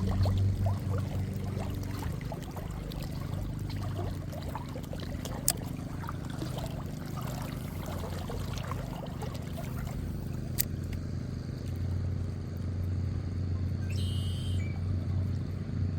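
Boat motor running steadily with a low hum, with water trickling and lapping. Two sharp clicks, about five and a half and ten and a half seconds in.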